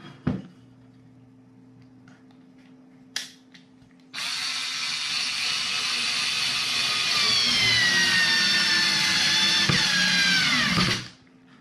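TECCPO 4 V cordless screwdriver running as it drives a screw into pitch pine, starting about four seconds in after two light knocks. Its whine falls in pitch as the screw goes in, then cuts off about eleven seconds in.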